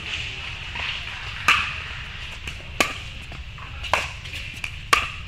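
Pickleball rally: paddles striking the hard plastic ball, with four loud sharp hits about a second apart and fainter taps between them.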